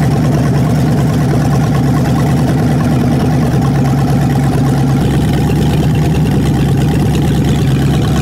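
Carbureted Ford 302 small-block V8 idling steadily on an engine stand while its idle and ignition timing are being tuned. Its note changes slightly about halfway through.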